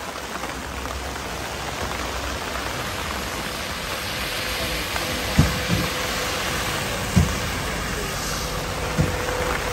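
Rain falling steadily and splashing on a wet street and a fabric stall canopy, growing a little louder. A bus drives past in the second half, and a few dull thumps come in the second half as well.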